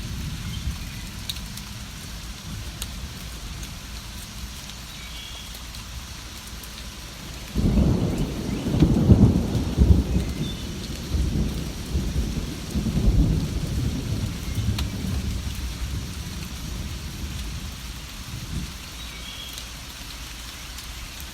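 Steady rainfall, with a roll of thunder breaking in about a third of the way through and rumbling in waves for several seconds before fading back to the rain. A few faint bird chirps come through the rain.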